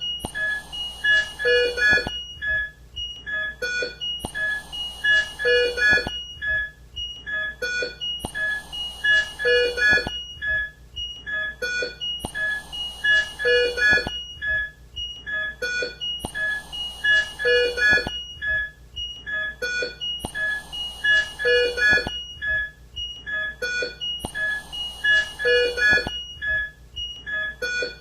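Intensive-care soundscape: patient monitors sounding many short electronic beeps, with a mechanical ventilator cycling, its breath hiss and a lower tone coming back about every four seconds.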